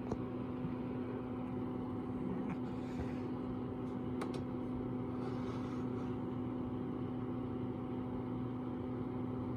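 An electric kitchen appliance switched on with a click and running with a steady, even electric hum.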